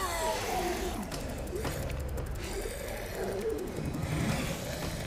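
Creature-like vocal moans from a mutated man, warbling and sliding up and down in pitch, over a low steady rumble.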